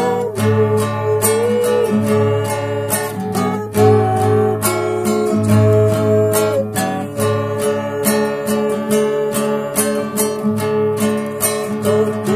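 A woman singing a slow Indonesian worship song while strumming a nylon-string classical guitar. Steady strums run under long held sung notes.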